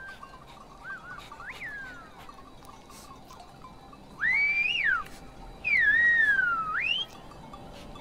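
Silbo Gomero whistled speech: faint whistled tones in the first two seconds, then two loud whistled phrases about four and six seconds in, each rising and falling sharply in pitch. The whistles carry the message 'come, lunch is ready'.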